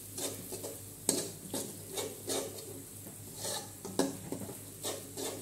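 Metal spatula scraping and stirring ground spices frying in an aluminium wok, in quick strokes about twice a second, with a faint sizzle underneath. The spices are still being toasted, not yet cooked.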